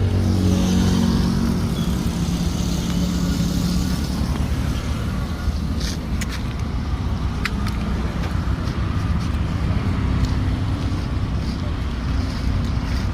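A motor engine running steadily with a low rumble, with a couple of faint clicks in the middle.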